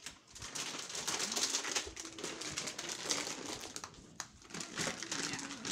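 Plastic treat bag crinkling as hands handle it, a dense, irregular crackle that runs on with a short lull about four seconds in.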